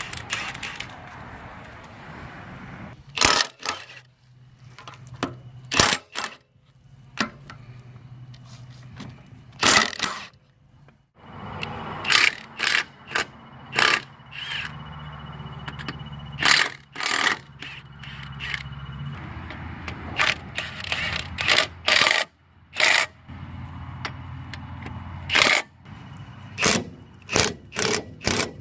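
Irregular sharp clicks and knocks, some in quick clusters, over a low steady hum that fades in and out.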